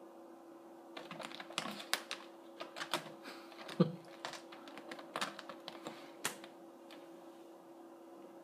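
A kitten's claws scratching and clicking on the upholstered back and wooden frame of a chair as it climbs and clings, a quick irregular run of scratchy ticks with a dull thump about four seconds in. The scrabbling starts about a second in and dies away after about six seconds.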